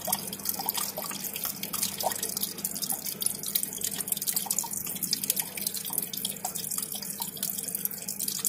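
Water trickling and dripping steadily down a paludarium's rock waterfall, with scattered small drips and a faint steady low hum underneath.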